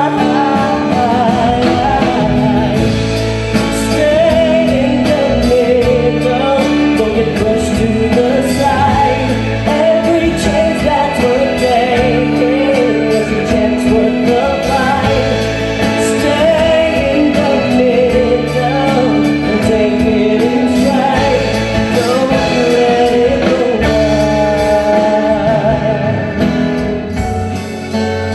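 Male singer singing a pop song into a handheld microphone, backed by a live band.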